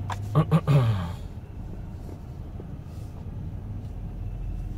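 Dodge Grand Caravan's engine and drivetrain giving a steady low hum inside the cabin as the van moves slowly across the lot. A brief louder burst of clicks comes about half a second in.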